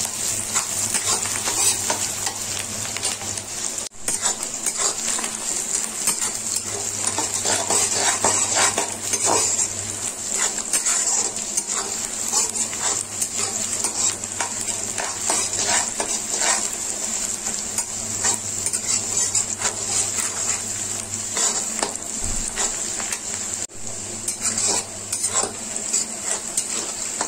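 Sliced onions and dried red chillies frying in mustard oil in a steel kadhai, sizzling steadily while a spatula scrapes and clatters against the pan as they are stirred. The onions are being fried until done, as the base of the masala.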